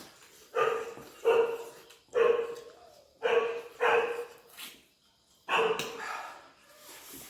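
A dog barking, about six sharp barks over several seconds with a pause before the last one.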